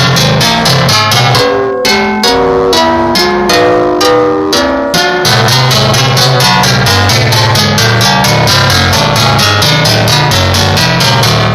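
Music with a fast, steady beat, a bass line and plucked, guitar-like melody notes. The bass drops out for a few seconds about two seconds in, then comes back.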